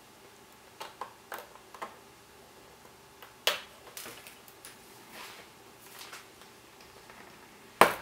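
Small screwdriver and screws clicking and tapping against the plastic bottom case of a white 2010 MacBook as the case screws are taken out, a scatter of light ticks with a sharper click about three and a half seconds in and another near the end.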